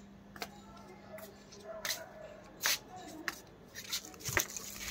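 Irregular rustles and clicks, the loudest a little before the middle and near the end, over a faint steady low hum.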